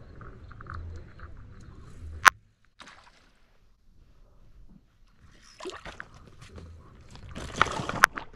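Water sloshing and splashing at the edge of rocky shallows, loudest near the end, with two sharp clicks, one about two seconds in and one near the end.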